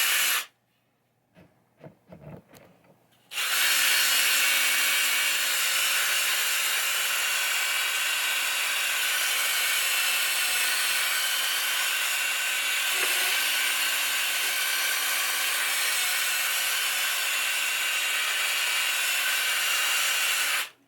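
Power drill spinning a scrub brush against a wooden pinball playfield, a steady motor whine over scrubbing, to scrub embedded dirt off. It stops briefly after half a second, with a few faint knocks, then starts again and runs until it cuts off just before the end.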